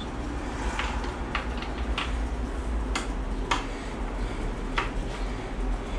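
About half a dozen light, separate clicks and taps from hands working on car-seat parts, over a steady low hum.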